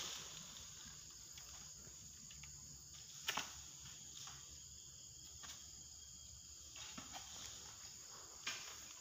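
Faint steady drone of insects, with a few light clicks or knocks, the sharpest about three seconds in.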